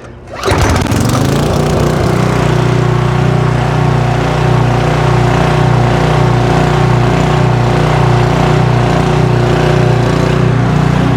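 Portable generator's small gasoline engine started on the pull cord, catching about half a second in and then running steadily at a constant speed: the long-abandoned generator running again after its fuel, spark and air were sorted out.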